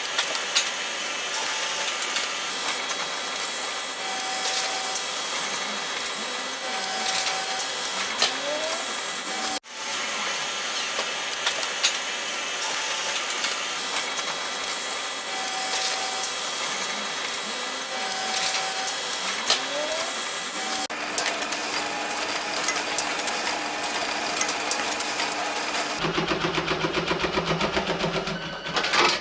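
Industrial sheet-handling machinery running with a steady whirr and scattered clicks as paper and board sheets are fed through. About three seconds before the end it changes to a Brother industrial pattern sewing machine stitching, a fast, even pulse.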